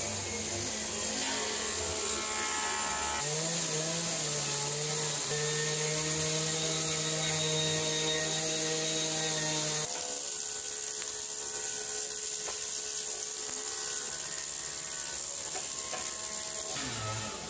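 Industrial wood planer running with a timber beam feeding through its cutterheads: a steady machine drone over a high hiss of cutting. The lower machine tones drop away about ten seconds in and the sound carries on a little quieter.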